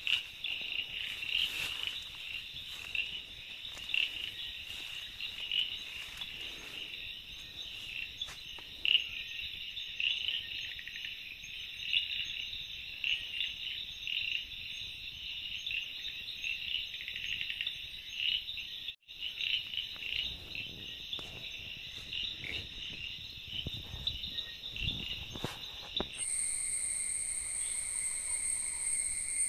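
Nighttime chorus of crickets and other insects, a dense pulsing trill with a few faint clicks. Near the end it changes abruptly to a steadier high-pitched drone.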